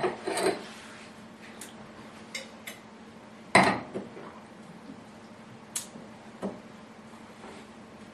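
Wine glasses handled on a wooden table: a few short, light knocks and clinks, the loudest about three and a half seconds in, over a faint steady hum.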